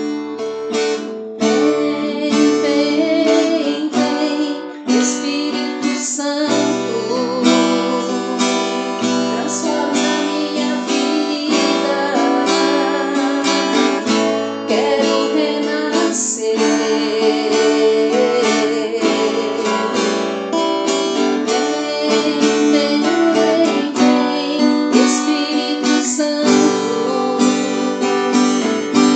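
Music: strummed acoustic guitar, with a woman's singing voice over it.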